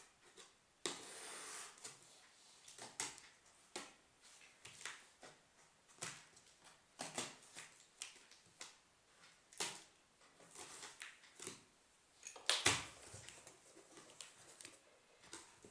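Cardboard box and packaging being opened and handled: irregular knocks, clicks and short rustles of cardboard and plastic, with one louder knock near the end.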